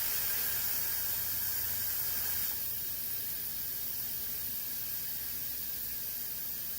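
Old air compressor giving a steady hiss of air, which drops slightly in level and thins in its middle about two and a half seconds in.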